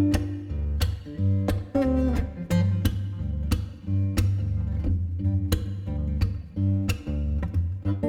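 Background music: a strummed acoustic guitar track with a steady beat and bass line.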